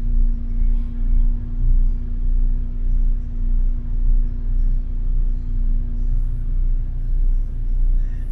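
Interior sound of a moving city bus: low engine and road rumble that swells and eases, over a steady droning hum, with faint high hissing near the end.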